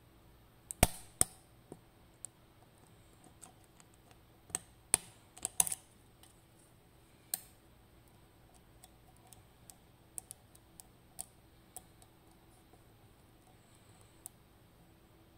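A lock pick working the pins of a FAB 3-star pin tumbler lock under tension: irregular sharp metallic clicks. The loudest come about a second in and around five to six seconds in, with fainter ticks later.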